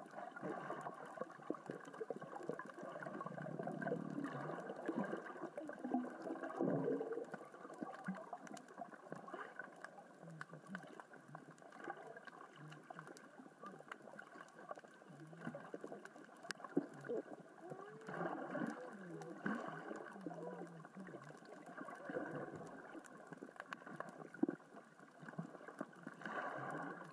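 Underwater ambience on a rocky reef: a constant fine crackling and clicking from small rocks rolling across the sea floor in the current and tide, over a low gurgling wash. A few brief wavering low tones rise and fall past the middle.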